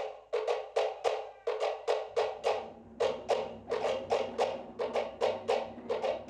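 Cook Islands wooden slit drums (pate) struck in a quick, even beat of sharp wooden knocks, about four a second. A deeper drum sounds underneath from about two seconds in.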